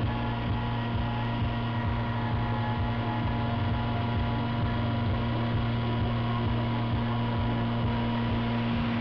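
CNC milling machine spindle running steadily while an end mill cuts a metal backplate: a constant machine hum with several steady tones over a noisy cutting hiss.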